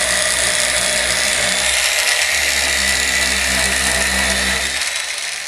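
High-speed handheld power tool running steadily with a high whine as it sands down the plastic lip of a motorcycle throttle tube. It winds down and stops near the end.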